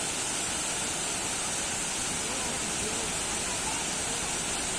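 Waterfall: a steady, even rush of falling water, with faint voices in the background.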